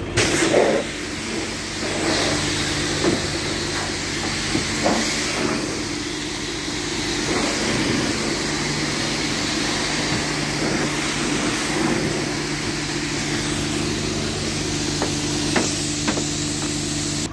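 Jet-wash water spraying from a wash-bay brush and lance onto a van, a steady hiss over a low steady hum.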